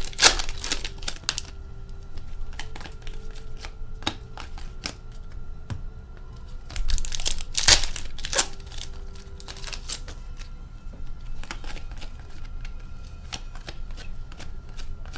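Hockey trading card foil packs crinkling and tearing open, and the cards being flicked and shuffled by hand with many light clicks. The crinkling is loudest just at the start and again about seven to eight seconds in.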